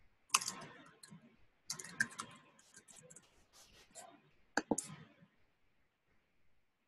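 Computer keyboard being typed on in short, quick bursts, then two sharper single clicks about two-thirds of the way through.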